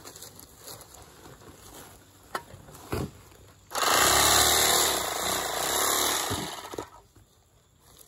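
Handheld electric bag-closer sewing machine running for about three seconds as it stitches the top of a filled corn sack shut. It starts abruptly, runs evenly, then winds down. The stitch goes through properly this time: "that one worked good."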